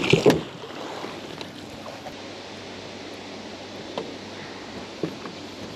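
Quiet outdoor background: a steady soft hiss of wind, with a short burst of handling noise at the very start and a couple of faint ticks about four and five seconds in.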